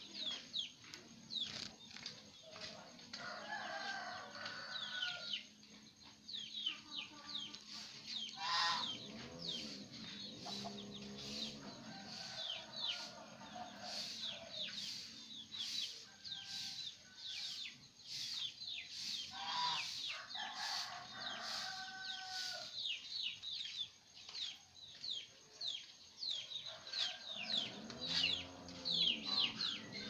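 Caged black-naped monarchs (selendang biru) calling in a rapid series of short, sharp, falling chirps. Behind them a rooster crows three times and chickens cluck low.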